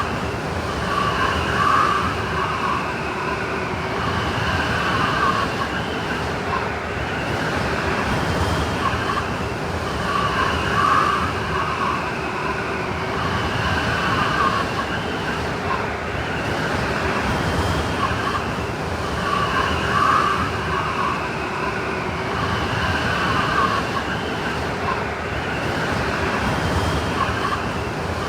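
Blizzard wind sound effect: a steady rush of wind with howling, whistling gusts that rise and fall in pitch every few seconds.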